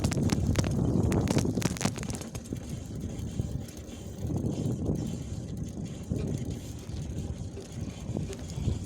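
Rumble and rattle of a small vehicle being ridden over an uneven surface, with a run of sharp knocks in about the first two seconds, the knocking apologised for as a fault of the ride.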